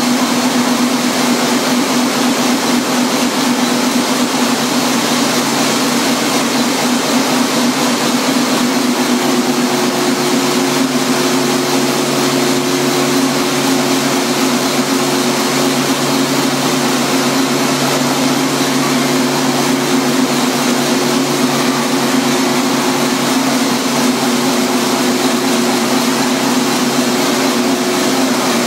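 Large inline multi-cylinder gas engine of a 200 kW gasification power plant's generator set, running steadily under its own power. It makes a loud, even drone. About a third of the way in, a second, higher steady tone joins and holds.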